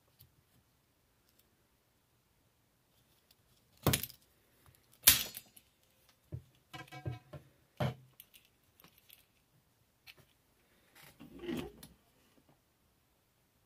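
Budget metal bipod handled: its spring-loaded legs are swung and snapped into place with sharp metal clicks, two loud ones about four and five seconds in and another near eight seconds. Between them comes a short run of rattling clicks, and near the end a softer rattle of the legs and springs.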